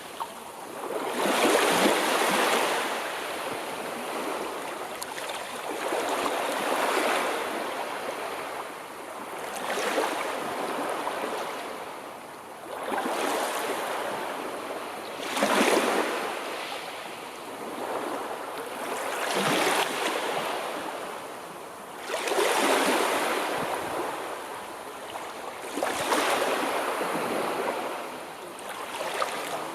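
Sea waves breaking and washing on the shore, in repeated surges that swell and fade every three to four seconds.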